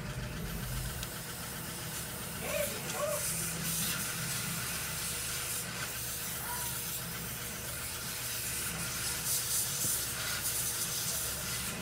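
Steady hissing noise over a low hum, swelling briefly about three seconds in and again near the end.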